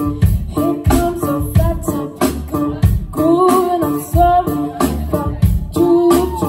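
Live band playing: drum kit keeping a steady beat of about three strokes a second under electric and bass guitar, with women singing. The singing is strongest from about halfway through and again near the end.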